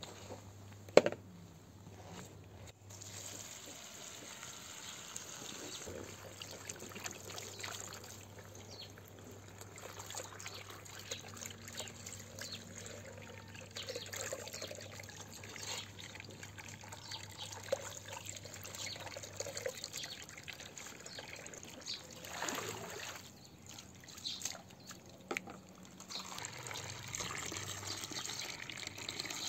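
Water from a garden hose trickling and pouring into a plastic bowl while leafy greens are swished and washed by hand, with small splashes. A single sharp knock about a second in.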